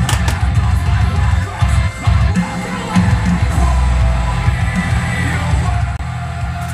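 Background music with a heavy, pulsing bass.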